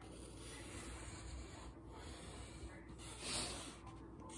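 Faint scratching and rubbing of drawing by hand on poster board, with a louder stroke about three seconds in.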